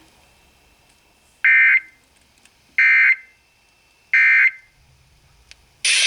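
Three short bursts of Emergency Alert System digital data tones, each about a third of a second long and about 1.3 seconds apart: the End of Message code that closes the alert. A louder sound, music, cuts in near the end.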